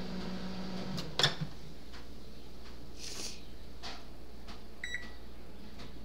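Microwave oven running with a steady hum that cuts off about a second in, followed at once by a clunk. A few light knocks follow, and near the end comes one brief electronic beep.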